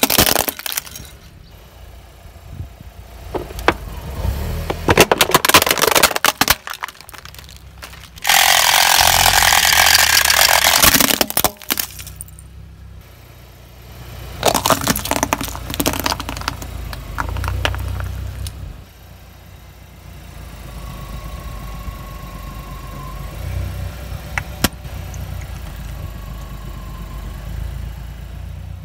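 A car tyre rolling slowly over objects on asphalt and crushing them one after another: bursts of cracks and crunches, a loud rushing noise for about three seconds, then more crackling, over the low running of the car's engine.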